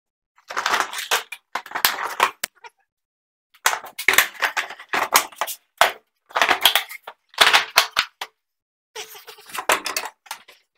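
Milwaukee PACKOUT hard-plastic tool boxes being moved and handled, with the wheeled stack shifted on the floor: four bursts of clattering and knocking with short pauses between them.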